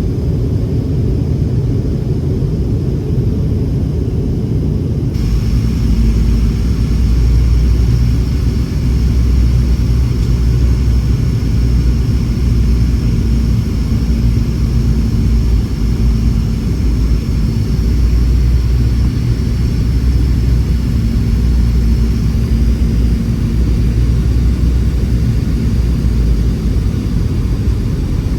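Cabin noise of a Boeing 717-200 with its rear-mounted Rolls-Royce BR715 engines: a loud, steady rumble. About five seconds in, it steps up into a louder rumble with a high engine whine over it.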